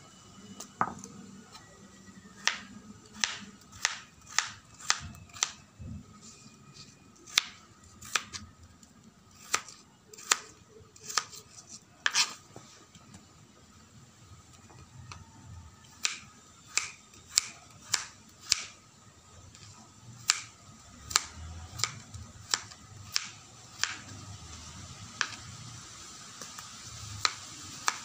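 Knife chopping banana stem on a plastic cutting board: sharp, irregular taps, about one or two a second, with a short pause around the middle.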